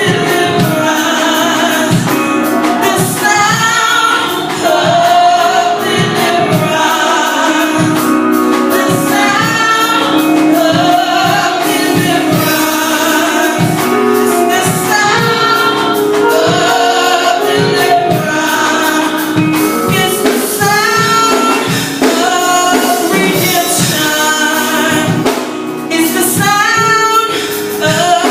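Gospel worship music: singers, with a choir sound, over a band with a steady drum beat.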